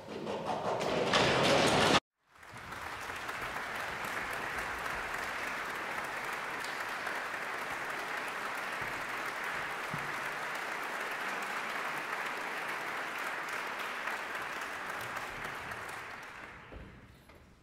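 A short, loud swell of orchestral playing, cut off abruptly. Then an audience applauding steadily for about fourteen seconds, fading out near the end.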